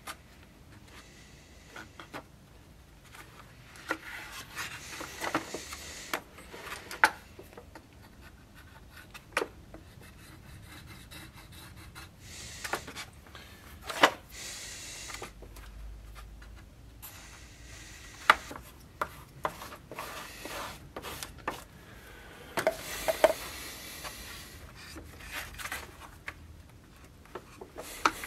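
Wooden scabbard pieces rubbed and scraped against the workbench and an abrasive sheet in intermittent stretches, with sharp knocks and clicks of wood being handled and set down.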